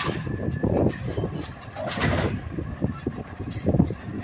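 Automated side-loader garbage truck working at the curb: its diesel engine runs under irregular clanks and knocks from the grabber arm and the carts, with a short hiss of air about two seconds in.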